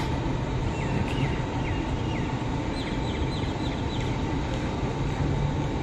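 Steady outdoor background rumble with a faint hum, over which a small bird chirps in quick series of short high notes, about a second in and again around three seconds in.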